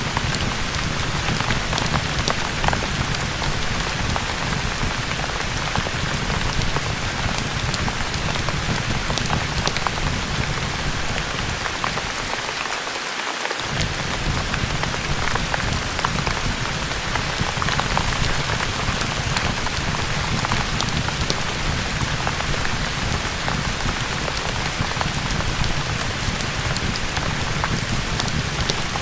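Steady heavy rain with a low rumble underneath and many scattered sharp ticks. The low rumble drops out for about a second halfway through.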